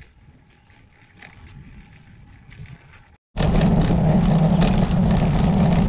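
Faint riding noise for about three seconds, then, after a sudden cut, loud steady wind rushing over the microphone of a road bike's handlebar-mounted camera, mixed with tyre rumble on a paved lane.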